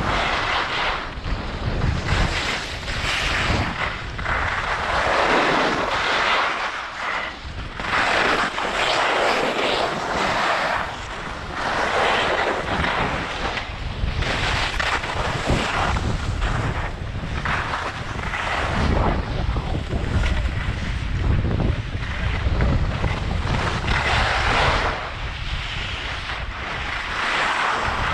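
Wind buffeting a GoPro's microphone during a fast ski descent, with the hiss of skis scraping and carving packed snow swelling and fading with each turn every few seconds.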